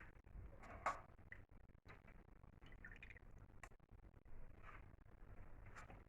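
Faint drips and a few light ticks of squeezed lemon juice being poured, over near silence; the clearest drip comes about a second in.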